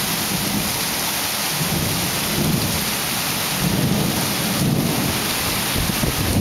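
Rain pouring steadily during a thunderstorm, with a low rolling rumble of thunder underneath.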